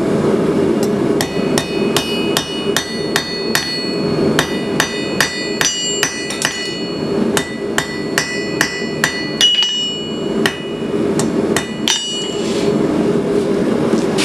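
Hand hammer striking a hot lag bolt head on an anvil to forge it square: about two to three blows a second, each with a bright metallic ring, a short pause near ten seconds in, and the blows stopping about twelve seconds in. A steady drone runs underneath.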